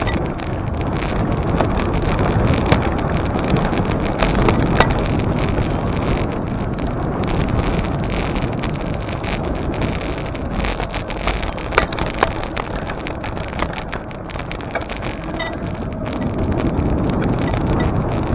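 Wind rushing and buffeting on the microphone of a camera on a moving bicycle, with a couple of sharp clicks about twelve seconds in.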